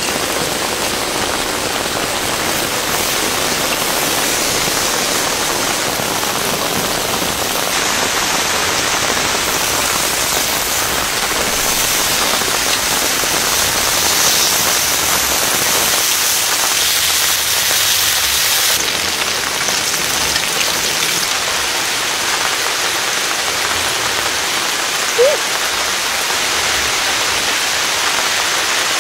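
Steady rain falling on a tent, a dense even patter throughout, with one brief rising squeak near the end.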